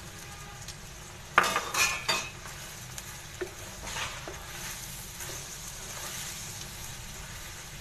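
A spatula clattering and scraping against a kadhai while vermicelli is stirred in boiling sugared water, with a steady bubbling underneath. The loudest clatter comes about a second and a half in, followed by a few lighter knocks.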